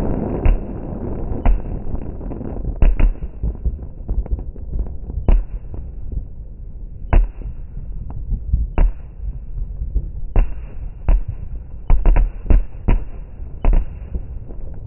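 Fireworks bursting: irregular sharp bangs, a second or more apart at first and coming in a quicker cluster near the end, over a steady low rumble.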